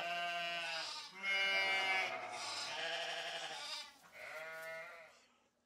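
Sheep bleating: about four drawn-out bleats one after another, the last ending about five seconds in.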